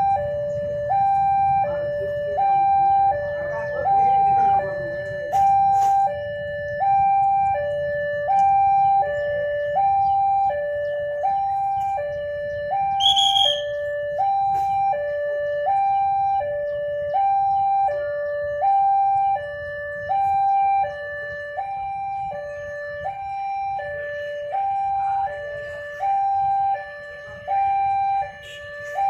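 Two-tone hi-lo siren alternating steadily between a higher and a lower note, about one full high-low cycle a second, over a low rumble. A brief high chirp sounds about thirteen seconds in.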